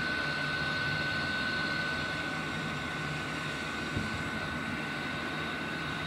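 Diesel air heater running steadily, its blower fan drawing air through the burner with a constant high whine over a steady rush. It has just fired up on 100% biodiesel and is self-sustaining, putting out heat.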